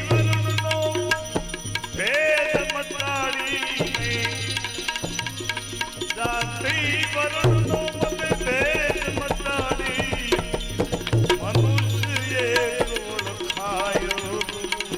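Instrumental interlude of a Gujarati devotional bhajan: a wavering, ornamented melody line over tabla strokes and low drum pulses.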